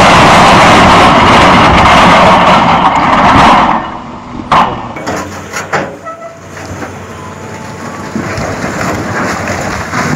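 A loud, even rushing noise that cuts off after about three and a half seconds. Then comes a sharp knock, and a hydraulic excavator pushes a huge stone block, its engine running under the cracking and grinding of rock.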